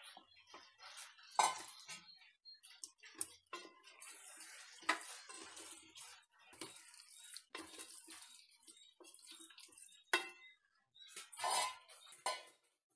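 Metal bowl knocking and scraping against the rim of a metal cooking pot as marinated chicken is emptied into it, then a wooden spatula stirring the chicken into the masala. Irregular clinks and knocks with scraping between them.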